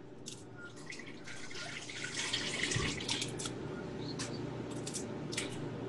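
A garlic clove being grated on a metal hand grater: quick, repeated scraping strokes, densest in the middle and thinning out toward the end.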